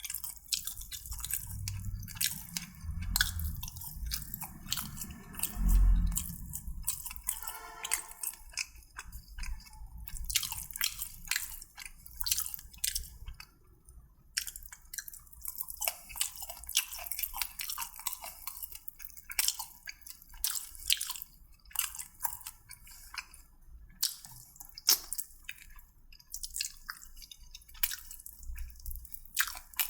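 Close-miked chewing and mouth sounds of a person eating, with many small wet clicks and crunches, and a brief hum about eight seconds in.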